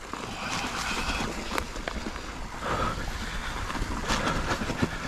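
Mountain bike rolling over a rough, rocky dirt trail: tyres crunching over stones, with the bike rattling and clicking throughout.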